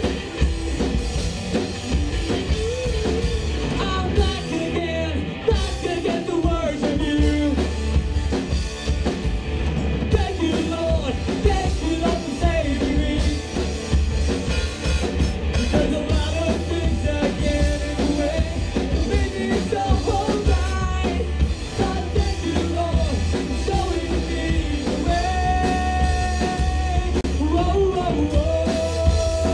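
Live rock band playing: electric guitar, bass guitar and drum kit under a melody line that bends in pitch, ending on long held notes.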